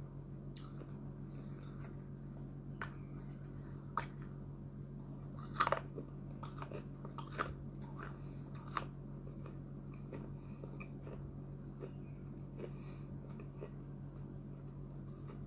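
Pieces of a small baked clay pot being bitten and chewed: sharp, brittle crunches, the loudest about five and a half seconds in, with smaller crackles of chewing between, over a steady low hum.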